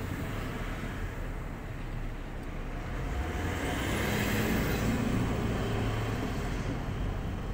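A motor vehicle's engine rumble on the street, growing louder around the middle and easing off near the end, as a vehicle passes.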